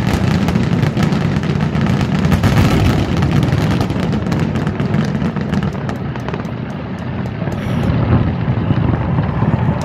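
Fireworks going off in rapid succession: a continuous rumble of booms with many crackling pops on top, easing a little about two-thirds through and building again near the end.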